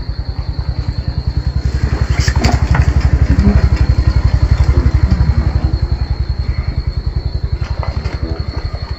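Small engine chugging in a steady, fast beat. It starts suddenly, grows louder toward the middle, then eases off slightly, like a motor passing close by.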